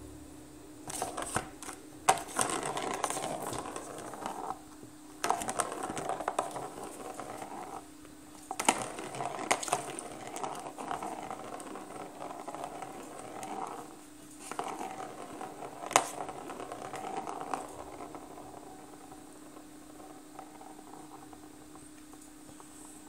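Plastic ball rolling around the plastic track of a circular cat scratcher toy as a kitten bats it, in about four spells of rattling a few seconds each, with a few sharp clicks where the ball is struck.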